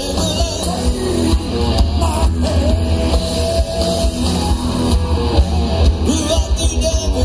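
Live rock band playing, with electric guitars and drums.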